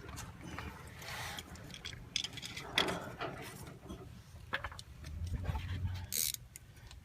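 Scattered metal clinks and scrapes of hand tools working at the rear muffler mount under the car, irregular and fairly quiet.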